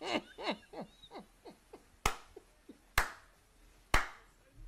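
A man laughing in a run of short, high, falling peals that fade over the first two seconds, then three loud hand claps about a second apart.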